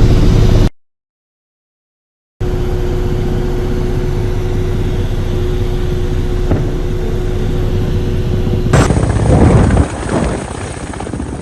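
Steady engine and rotor noise inside a Ka-52 attack helicopter's cockpit, with a constant hum. It cuts out to silence for nearly two seconds near the start. About nine seconds in the sound changes abruptly to a louder, rougher rumble.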